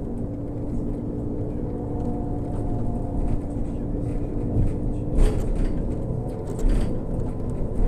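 Irisbus Crealis 18 GNV natural-gas articulated bus running, heard on board: a steady low rumble and hum of the engine and body. Two louder knocks from the bus body, about five seconds in and a second and a half later.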